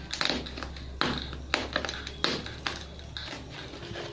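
Irregular sharp taps and crackles as a pen point jabs through and tears the packing tape on a foam-wrapped parcel.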